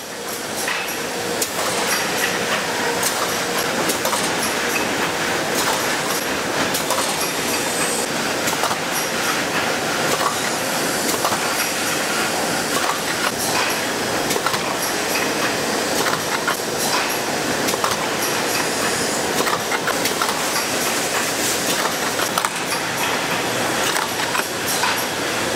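Ice cream production-line machinery running: the filling and moulding machines make a steady mechanical clatter dotted with many quick metallic clicks.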